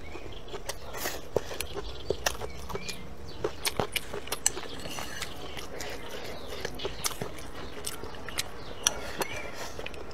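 A person chewing and gnawing bony meat, with irregular sharp crunching clicks that bunch together at times.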